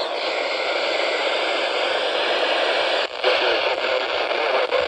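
Radio receiver hissing with steady static and no station coming through, with a few clicks about three seconds in and near the end.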